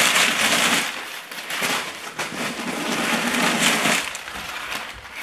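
Crumpled tissue-paper stuffing crinkling as it is pulled out of a leather backpack, in two bouts: one over the first second, then a longer one from about a second and a half in to about four seconds.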